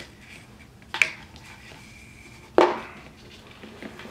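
Paracord being worked on a wooden bracelet jig: faint rustling of the cord and two sharp knocks, about a second in and again about a second and a half later.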